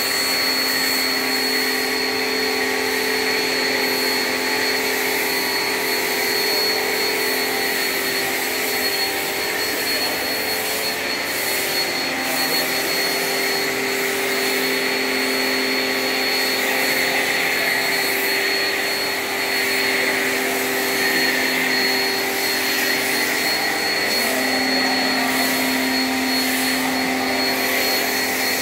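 Pressure washer running steadily while its snow foam lance sprays foam: a continuous motor hum with a thin high whine over a hiss of spray. The hum shifts slightly in pitch a few times.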